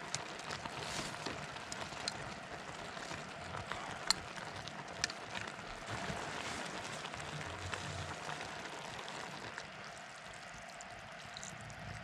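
Beef frying in a pot over a camping gas stove: a steady sizzling hiss, with scattered sharp clicks of chopsticks knocking against the pot as the meat is stirred.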